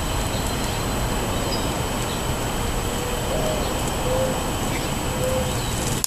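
Steady wind noise on the microphone, with a dove's soft low coos coming through several times in the second half.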